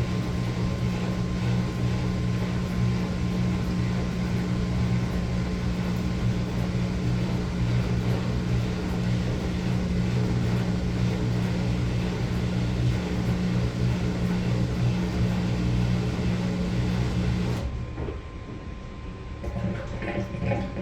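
Maytag Bravos MCT top-load washer running with a steady low hum and rushing water; the hum cuts off suddenly near the end, leaving a quieter wash of water with a few light clicks.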